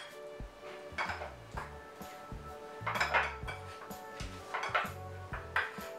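A metal utensil scraping and clinking against a ceramic bowl in short, irregular strokes as raw chicken pieces are mixed into a flour coating, over soft background music.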